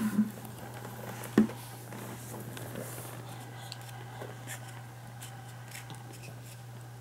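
Faint clicks and rustles of small plastic yogurt-drink bottles being handled and sipped through a straw, over a steady low hum, with one sharp knock about a second and a half in.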